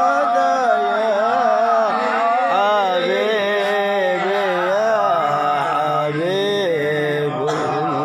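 A man chanting Arabic Qur'an recitation in the melodic, ornamented style, his pitch winding up and down through long held phrases. A steady low hum joins about five seconds in.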